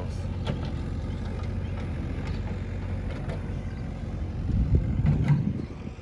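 Engine of a backhoe loader running steadily, a low hum that swells louder about four and a half seconds in and falls away near the end.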